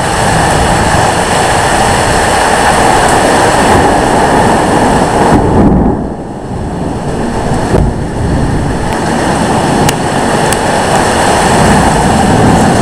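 Microburst wind rushing and buffeting the microphone over heavy rain pouring down, a loud steady noise with a deep rumble. It eases for a moment about six seconds in, then picks up again.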